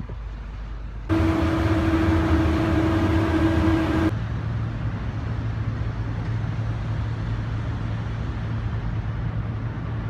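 Steady low hum of the car ferry Schulpengat's engines and machinery, heard on its car deck. About a second in, a loud steady tone with overtones sounds for about three seconds and cuts off sharply.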